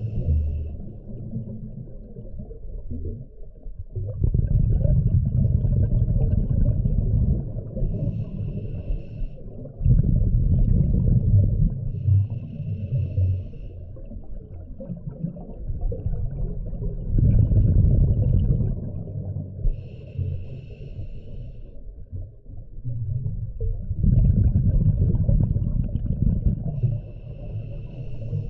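A scuba diver breathing through a regulator underwater: slow breaths about every seven seconds, each with a long burst of low bubbling exhaust bubbles and a shorter high hiss from the regulator.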